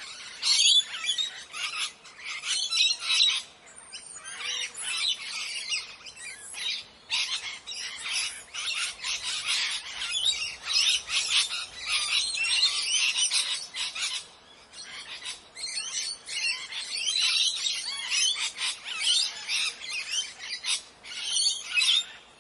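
Parrots squawking and chirping in rapid, overlapping high calls, with brief lulls a few seconds in and again past the middle.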